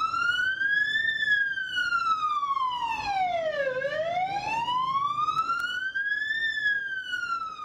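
Ambulance siren in a slow wail, its pitch sweeping smoothly up and down, about two and a half seconds each way, peaking twice.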